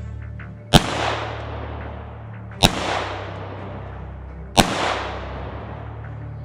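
Three shots from a 1911-style pistol chambered in .22 Long Rifle, about two seconds apart, each a sharp crack followed by a long echo that fades over a second or more.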